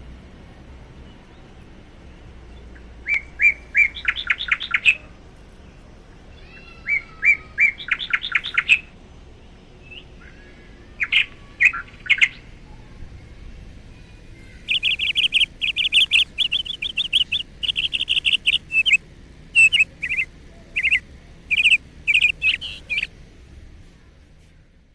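A bird singing in bouts of rapid, repeated high chirping notes: three short phrases, then a longer run in the second half, over a faint low steady hum.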